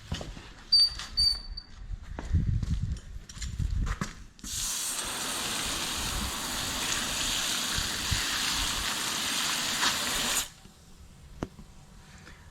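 Water sprayed steadily from a nozzle onto a tire for about six seconds, starting about four seconds in and cutting off suddenly, to leak-check the tire for escaping air. Before it, a few knocks from handling.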